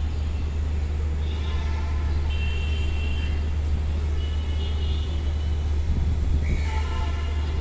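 City street traffic ambience: a steady low rumble of road traffic, with short higher-pitched tones cutting in over it four or five times.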